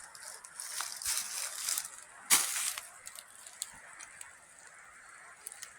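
Frozen rhododendron leaves rustling and crinkling, with a sharp crunch a little past two seconds in, then fainter rustles and ticks.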